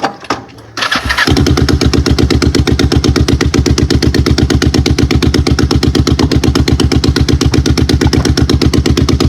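Motorcycle engine starting: a few clicks, a brief crank of the starter about a second in, then the engine catches and idles with a rapid, even beat.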